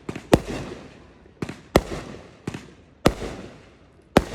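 Fireworks bursting close by: about seven sharp bangs at uneven spacing, each trailing off in a fading echo.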